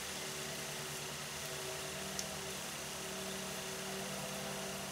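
A steady mechanical hum with several steady tones over an even hiss, like a motor running nearby.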